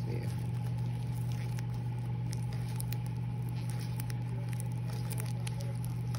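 Tissue paper and wrapping rustling and crinkling under a hand, in faint scattered crackles, over a steady low hum that is the loudest thing throughout.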